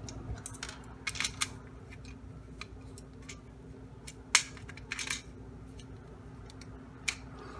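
Hex screwdriver driving screws into a 3D-printed plastic carriage, with scattered light clicks and taps of tool and plastic parts, the sharpest about four and a half seconds in.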